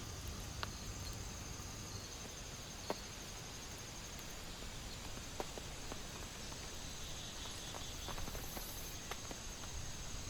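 Steady rain falling on a tent, with a few sharper single drop taps scattered through and a faint high trill underneath.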